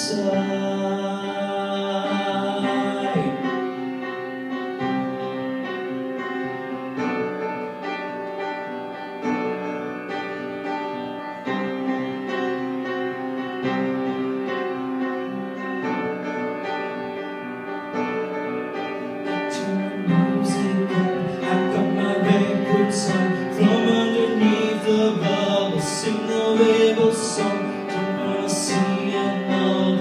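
Instrumental backing music of a pop song, with steady piano and guitar chords; a man's voice sings one drawn-out word near the start. About two-thirds of the way through, the music grows louder and sharp beat hits come in.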